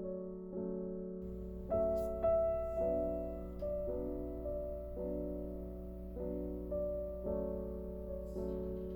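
Background piano music: gentle keyboard chords and melody notes, a new note struck about every half second to a second and left to ring.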